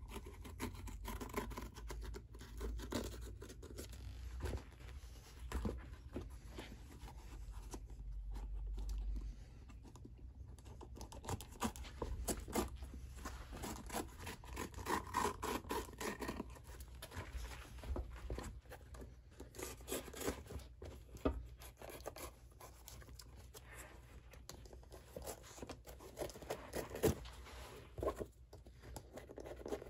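Close hand-work sounds on a shoe: irregular small scrapes, scratches and clicks, with tearing as the blue fabric layer is peeled from the sole edge, over a faint low hum.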